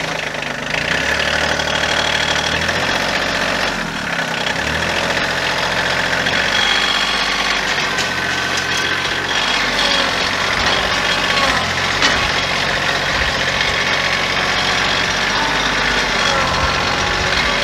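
Kioti CK2610 compact tractor's three-cylinder diesel engine running steadily as the hydrostatic-drive tractor drives off, heard from the operator's seat. The engine note shifts about four seconds in.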